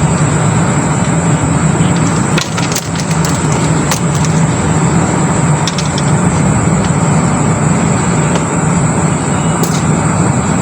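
Steady low droning hum under a constant noisy rush, with a few faint clicks.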